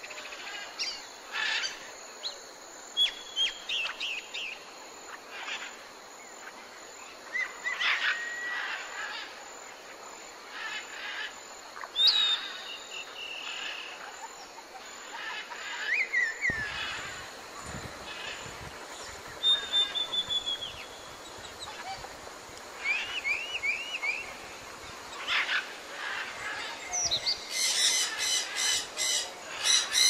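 Several birds calling in a rainforest: scattered whistles, chirps, short trills and falling calls over a steady background hiss, with a rapid run of loud calls near the end.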